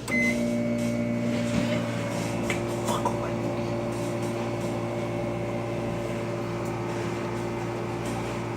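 Microwave oven beeps once as it starts, then runs with a steady electrical hum, set for 15 seconds.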